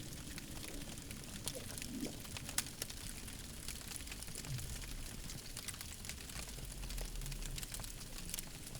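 Campfire crackling: a steady hiss with many small, irregular pops and snaps.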